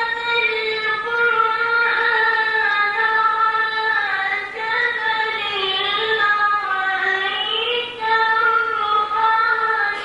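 A boy's voice reciting the Quran in melodic tajweed, holding long, ornamented high notes that glide up and down, with two short breaks.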